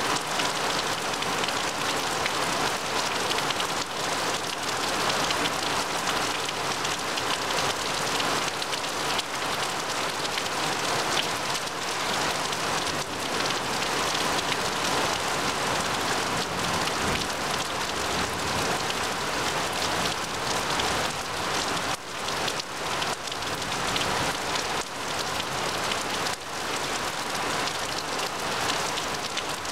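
Heavy rain falling steadily on a grass lawn and the leaves of trees, a dense, even hiss of countless drops.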